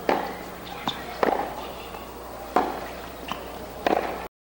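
Tennis balls being struck with rackets and bouncing on a hard court during a baseline rally: about six sharp pops at irregular spacing. The sound cuts off suddenly near the end.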